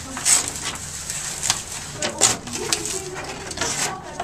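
Sandpaper being rubbed by hand on a wall, making an irregular series of hissing, scratchy strokes.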